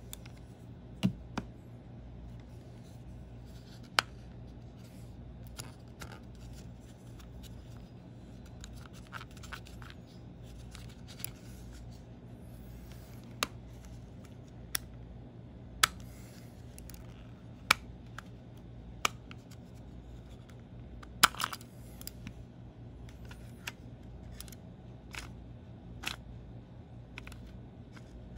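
Sharp plastic clicks and taps, spaced irregularly, from a wireless mouse's battery cover being removed and an AA battery being handled in its compartment, over a faint steady low hum.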